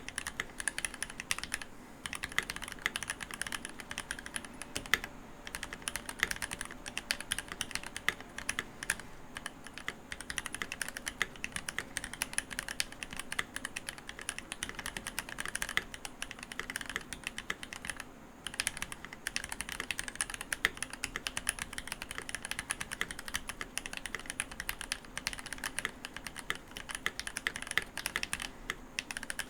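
Continuous fast typing on a Keychron V1 mechanical keyboard with linear Gateron Cap Milky Yellow switches and GMK ABS keycaps: a steady stream of keystroke clacks with a few short pauses.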